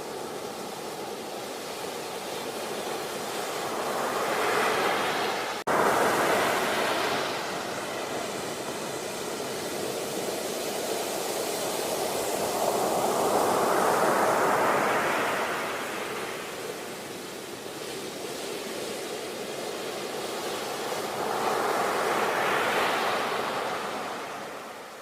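Sea waves breaking and washing on a shore, swelling and ebbing in three slow surges about eight or nine seconds apart. There is an abrupt jump in the sound about five and a half seconds in.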